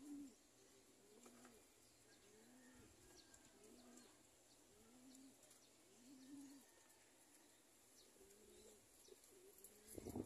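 Domestic pigeons cooing, a soft repeated coo about once a second. A brief louder low rumble comes near the end.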